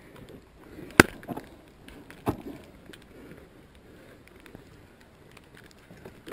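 A few sharp knocks against hard snow, the first and loudest about a second in, then two more over the next second and a half, with faint rustling between.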